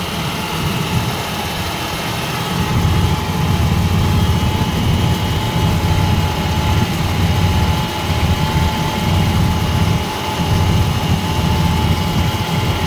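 1990 Chevrolet Caprice engine idling under the open hood, a steady low rumble that gets louder about two and a half seconds in, with a faint steady high tone over it. The engine is running so the new transmission cooler lines are under pressure for a leak check.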